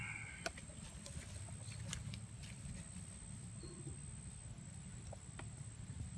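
Faint rustling and a few scattered small clicks from the undergrowth and handheld camera handling, over a steady low rumble and a thin steady high whine.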